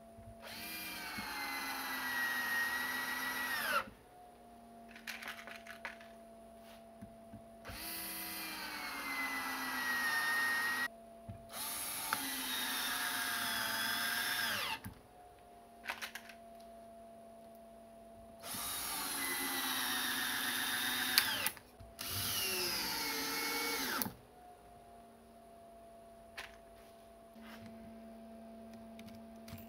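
12-volt drills converted to run from a server power supply, drilling into wood in five bursts of a few seconds each. Each burst spins up, and the pitch sags under load before it stops. A steady hum carries on between the bursts.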